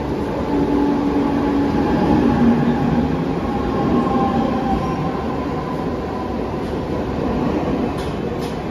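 Mumbai suburban EMU local train running along the platform: a steady rumble of wheels on rail with a humming motor whine, and a few sharp clicks near the end.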